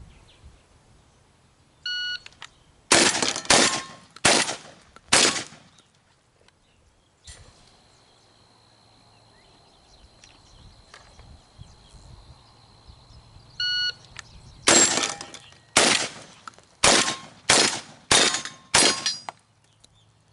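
A Browning A5 semi-automatic shotgun firing two rapid strings, each started by a short electronic beep: four shots in about two seconds, then after a pause six shots in about four seconds.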